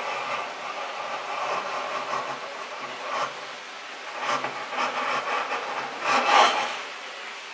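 Stanley Bailey No. 6 fore plane, fitted with a Pinnacle blade, shaving the end grain of a board in a run of strokes, the last and loudest about six seconds in. The plane is set fine enough to cut end grain cleanly, the test of a sharp, well-adjusted blade.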